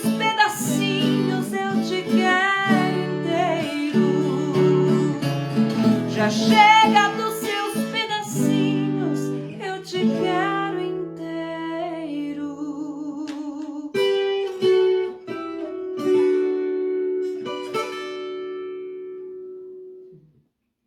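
Viola caipira playing the closing bars of a song: plucked strings with a wavering melody line, thinning out into a final chord that rings and dies away about 20 seconds in.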